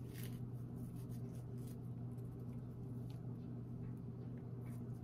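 Faint, scattered crackles of crisp Biscoff cookies being crumbled between gloved fingers and dropped onto a frosted cake, over a steady low hum.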